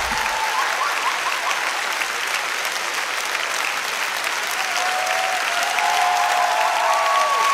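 Large theatre audience applauding, clapping steadily.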